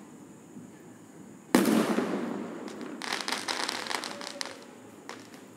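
Fireworks: one loud bang about one and a half seconds in that trails away over about a second, then a rapid run of crackling pops lasting about a second and a half, and one last pop near the end.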